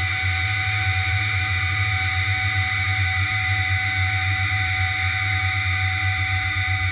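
Outboard motor idling steadily: a low, even, pulsing run with a thin steady whine above it.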